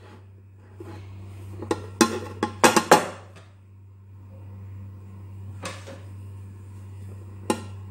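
An upturned aluminium cake pan and plate knocking and clattering against the countertop as they are flipped and set down. There is a cluster of sharp metallic knocks about two to three seconds in, with a few single knocks later, over a low steady hum.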